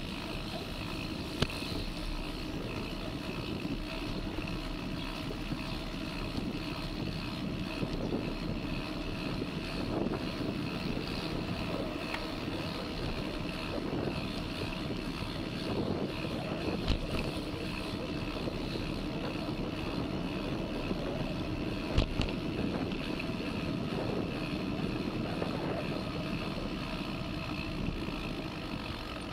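A steady motor drone, as of a vehicle running, with three sharp clicks or knocks scattered through it.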